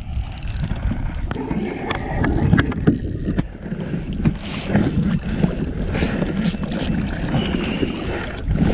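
Wind on the microphone and water against a small boat's hull, with scattered mechanical clicks from the spinning reel while the jig is snagged on rock.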